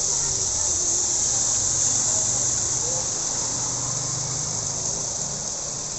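Steady rain falling, an even high hiss throughout, with faint distant voices underneath.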